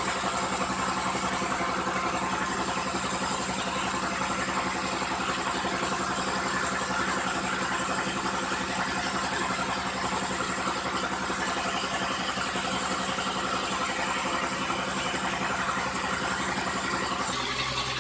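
Engine running steadily at idle, an even mechanical drone with a fast regular pulse; the sound changes abruptly near the end.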